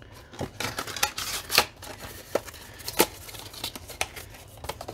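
Plastic Samsung clear standing phone case and its cardboard packaging being handled and packed away: a string of irregular clicks, taps and short rustles.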